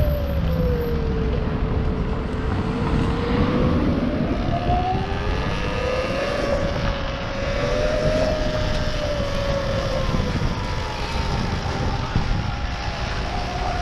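Electric dirt bike's motor whining under way, its pitch falling and rising with road speed, over a low wind rumble on the microphone.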